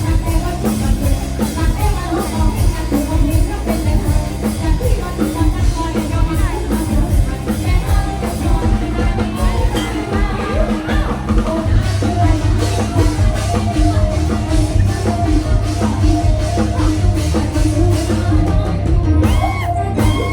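Loud live band music from a concert stage, with a drum kit keeping a steady beat under a singing voice.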